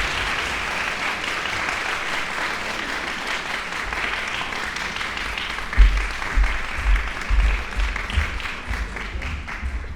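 Audience applauding, the clapping thinning out toward the end, with a series of low thumps from about six seconds in.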